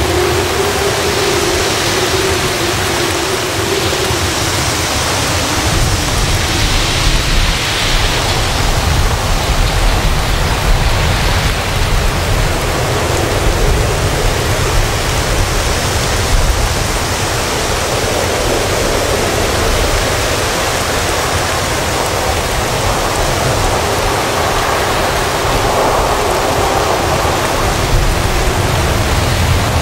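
Heavy rain pouring in strong, gusting wind: a loud, steady hiss of rain over an uneven low rumble from the wind.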